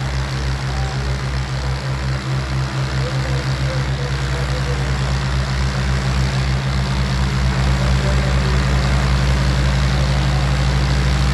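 Heavy tractor diesel engine running with a steady low throb, growing slightly louder over the second half.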